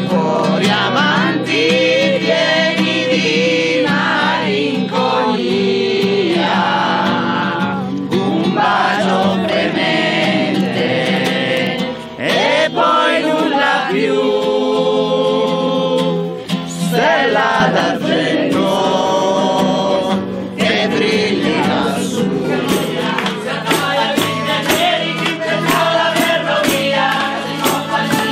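Group of men and women singing a song in Italian together, with acoustic guitar accompaniment.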